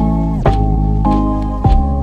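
Background music: a held melody that bends down in pitch just after the start, over deep bass hits that fall in pitch, about one every 1.2 s.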